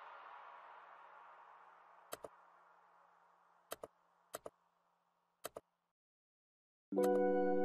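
Computer mouse clicking in four quick pairs, as the tail of background music dies away. New music with held keyboard-like tones starts abruptly near the end.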